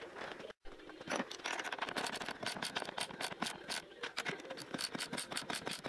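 Ratchet wrench clicking rapidly, about five clicks a second, as it tightens the nuts on the bolts holding a steel castor plate to a plywood base.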